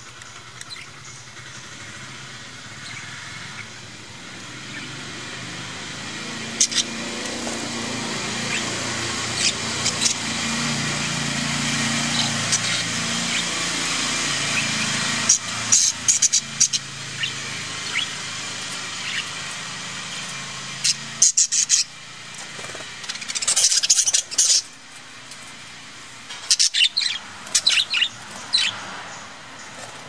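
Budgerigars chirping and chattering over a steady high hiss, with many short, sharp calls coming in quick clusters in the second half. A low drone runs underneath through the middle.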